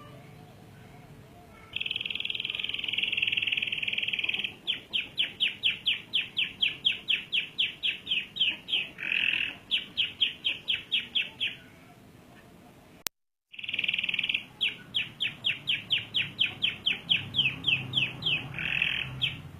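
Canary singing: a sustained rolling trill, then a long run of quick repeated notes, about four or five a second, broken by short trills. The song breaks off abruptly for half a second about 13 seconds in, then the same trill-and-notes phrase starts again.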